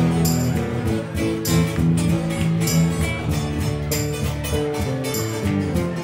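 Live rock band playing an instrumental passage with no vocals: guitar over bass, with drum and cymbal hits keeping the beat.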